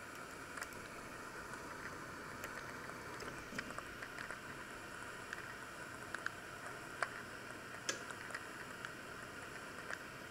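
Steady low hiss of an electric oven running, with scattered light clicks as its temperature dial is turned and its timer is set.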